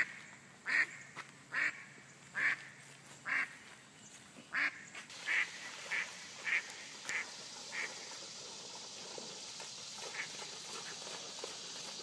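A duck quacking over and over, short calls about one a second that come quicker and fainter and die away after about eight seconds. A faint steady hiss rises from about halfway.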